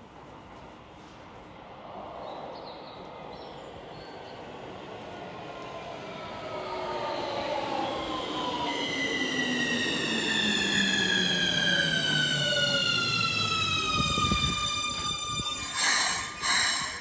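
Keikyu electric train pulling in and slowing, its traction motor whine falling steadily in pitch as it brakes, with a growing rumble of wheels on rail. Near the end come two short, loud bursts of noise.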